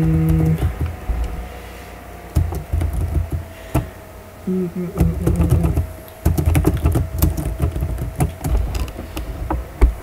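Typing and clicking on a computer keyboard, irregular taps with low thumps, as a song is being looked up. A short hummed note by a man's voice stops about half a second in, and another falls in pitch about halfway.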